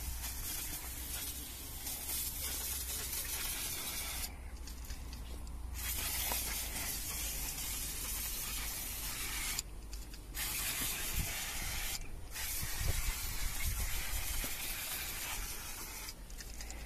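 Aerosol can of Würth engine cleaner spraying in long hissing bursts over an engine bay. The spray breaks off for about a second and a half about four seconds in, then for shorter breaks twice later and once near the end.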